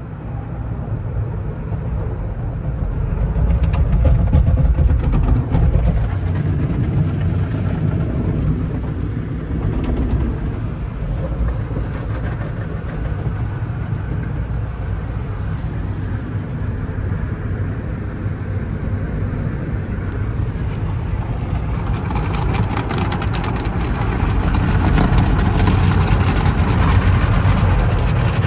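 Automatic car wash tunnel heard from inside a car's cabin: cloth brushes and water spray working over the body, with a steady low rumble. It swells about four seconds in and again near the end, with more hiss as the spray and brushes work over the windshield.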